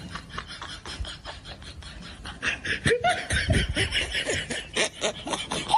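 A person laughing in quick, short pulses, at first faint and then louder from about halfway through.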